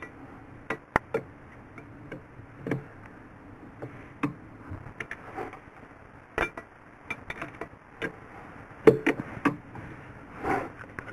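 Two steel 17 mm open-end wrenches clinking and knocking on the nuts and bolts of the transmission-to-shaft coupling while the nuts are being loosened: a string of irregular sharp metallic clicks, the loudest about nine seconds in.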